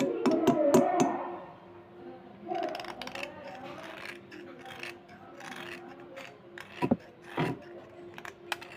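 A small knife blade scraping a slate pencil: a run of short, dry scrapes and ticks, loudest in the first second.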